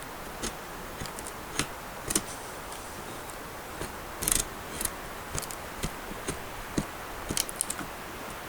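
Knife blade shaving wood off a stick held in a stump vise: a string of short, irregular scraping strokes, a few with a brief hiss, coming quicker near the end.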